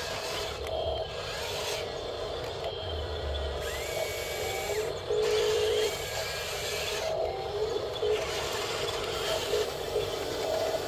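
Small electric motors and gearboxes of RC construction models whining and grinding, with the pitch rising and falling: a tracked RC bulldozer drives over dirt while an RC articulated dump truck tips its bed.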